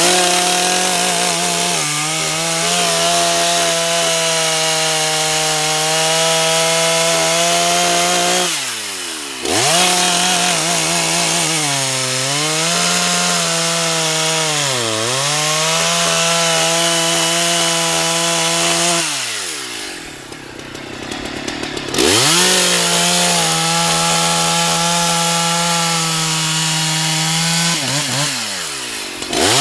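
Husqvarna 181 SE two-stroke chainsaw running at full throttle through logs, its pitch sagging as the chain loads up in the cut. It comes off the throttle briefly about nine seconds in, for a couple of seconds around twenty seconds in, and again near the end, each time revving straight back up.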